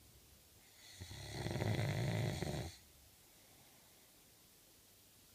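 A man snoring: one long, loud snore with a fluttering rattle, starting about a second in and lasting nearly two seconds.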